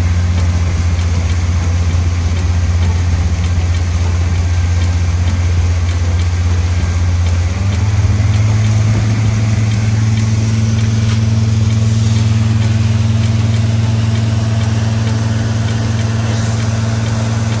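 Pontoon boat's motor running underway, a steady low drone that steps up slightly in pitch about eight seconds in and holds there.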